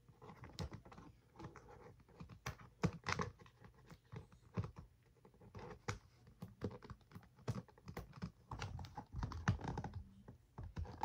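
Hands working a small toy free of its packaging: irregular light clicks and taps.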